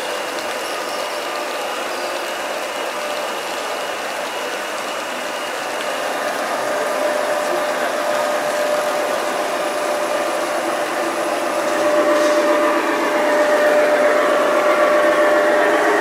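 Large-scale model trains running: a steady mechanical whir of locomotive motors, gears and wheels on track. A steady hum grows louder about six seconds in and again near twelve seconds in as another locomotive approaches.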